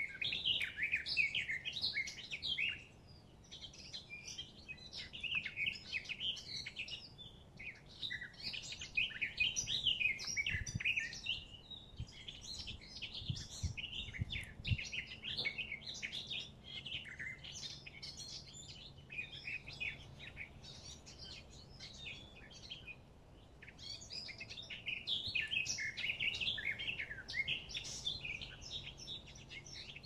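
Several songbirds chirping and singing at once in a dense, continuous chorus of quick high notes, thinning briefly twice.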